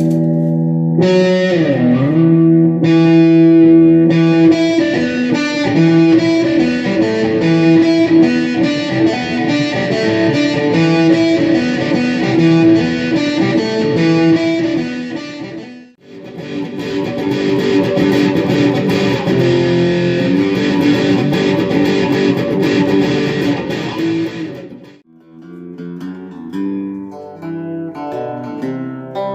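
Homemade four-string semi-hollow electric guitar, 25-inch scale and tuned E-A-D-G, played through a Roland Micro Cube amp using its built-in effects. Full ringing chords and riffs with a quick pitch dip and swoop about a second in; the playing stops briefly about halfway through and again near the end, after which it turns to quieter single notes.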